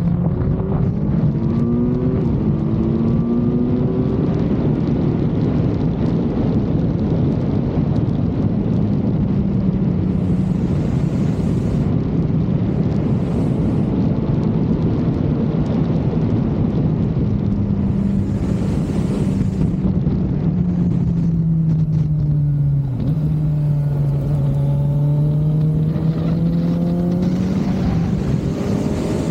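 Kawasaki Z900's inline-four engine on the move, its note climbing through accelerations early on and again near the end. About two-thirds through it eases off between corners. Rushing wind runs beneath it.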